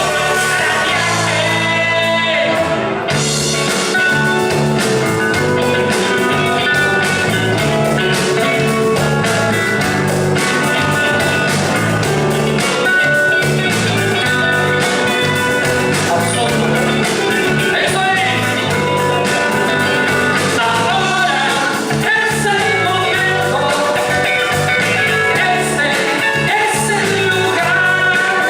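Band music with singing, a stepping bass line and a steady beat, playing continuously.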